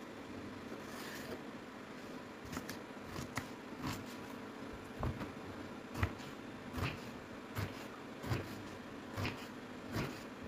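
Kitchen knife cutting eggplant into chunks on a wooden cutting board: a steady series of short knocks as the blade goes through and meets the board, about one every three-quarters of a second.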